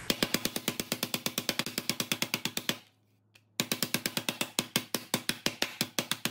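Metal meat tenderizer mallet rapidly pounding a thin pork loin chop on a cutting board, about a dozen strikes a second, pausing briefly about three seconds in before starting again.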